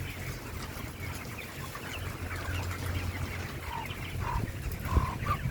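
A large flock of 30-day-old broiler chickens calling, with many small overlapping chirps and a few clearer short calls near the end, over a low steady hum. The flock is sick with cekres, a snoring, rattling respiratory illness, according to the keeper.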